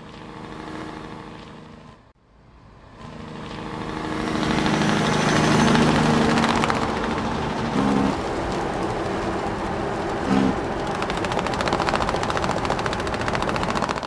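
Large farm tractor engine running, building up over a couple of seconds and then holding steady and fairly loud.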